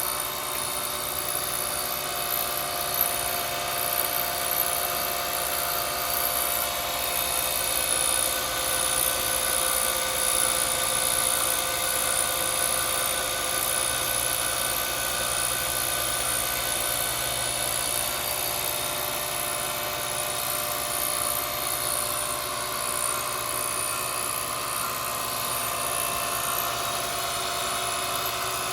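A grinder running steadily as it grinds relief into a 1/4-28 left-hand tap so the tap will cut all the way through, a constant whine with a high hiss.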